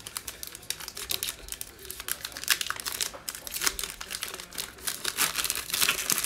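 Shiny foil wrapper of an Illusions football card pack crinkling as it is torn open by hand, a dense crackle that grows louder near the end as the wrapper is pulled apart.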